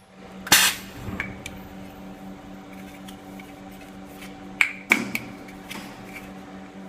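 Ultrasonic plastic welding machine in operation. A short, loud burst of hiss comes about half a second in, then the machine's steady hum. A few sharp clicks of plastic housing parts sound near the five-second mark.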